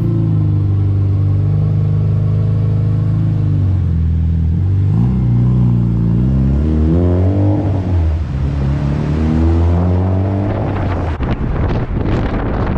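Honda Civic engine running on its freshly installed K-Tuned big-tube stainless header: a steady idle, then the revs climb about four seconds in, dip, and climb again. Near the end the engine note gives way to a rushing noise.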